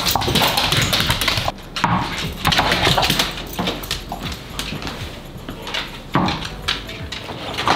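An Australian Shepherd's claws clicking on a hardwood floor as it trots, a quick, irregular run of clicks.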